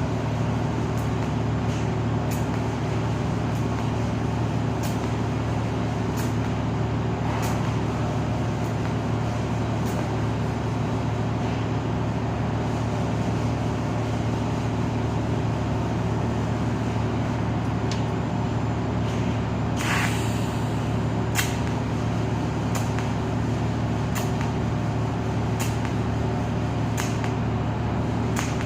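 TIG welding rig running with a steady electrical hum, broken by regular sharp ticks a bit more than a second apart and a short hiss about twenty seconds in.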